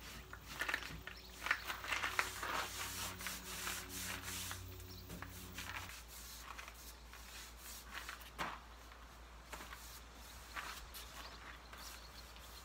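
A rag rubbing glaze over the painted wood of a dresser: a run of short scratchy wiping strokes, dense for the first half and sparser after.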